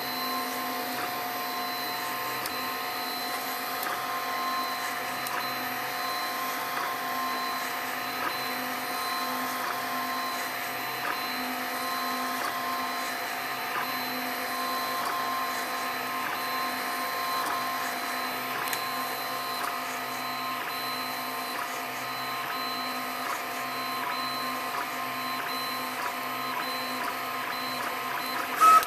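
Open-frame 3D printer running a print: a steady mechanical whine from its motors and fan as the print head moves over the part. A brief loud click comes near the end.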